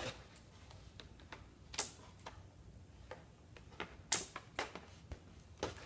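Irregular sharp clicks and snaps of a toy's cardboard-and-plastic packaging being cut open and handled, about a second or less apart, a few of them louder.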